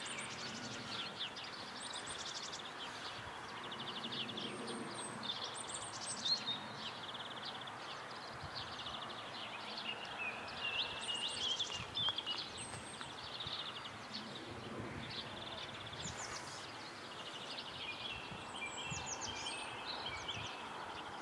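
Several songbirds singing, with rapid repeated trills and short chirps throughout, over steady low background noise.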